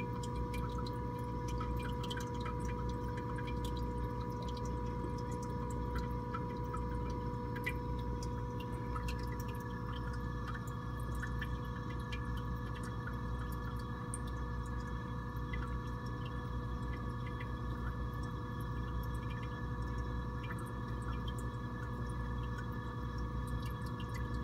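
Small reef aquarium's equipment running: a steady pump hum with a faint whine, over trickling water with scattered tiny drips and pops. A second, higher tone joins in about ten seconds in.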